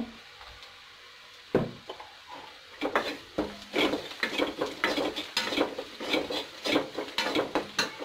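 A steel spoon stirring and scraping thick frying masala in a non-stick kadai, in quick repeated strokes about two to three a second, after a single knock about one and a half seconds in.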